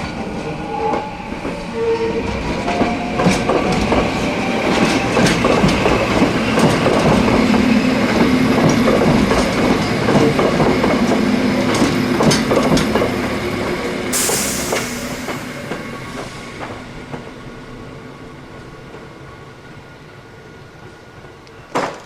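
Hakone Tozan Railway electric train passing, wheels clicking over the rail joints. The running noise builds up and then fades steadily as the train moves away. A few short horn notes sound near the start, and there is a burst of hiss about two-thirds of the way through.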